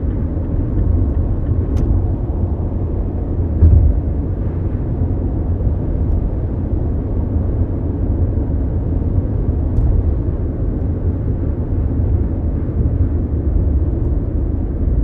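Interior of a Mazda CX-5 cruising on a highway: a steady low rumble of road and engine noise in the cabin, with a louder bump about four seconds in and a few faint clicks.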